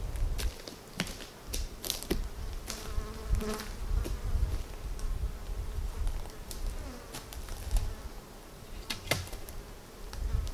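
Footsteps crunching over a dry forest floor of conifer needles and twigs, with irregular sharp cracks and snaps. A flying insect buzzes near the microphone about three seconds in.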